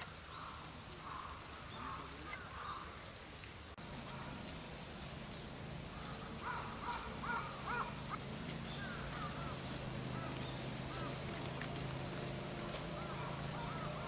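Outdoor ambience at a pond with a bird, not in view, giving quick runs of short harsh calls, the loudest run about six seconds in. A steady low hum sets in about four seconds in.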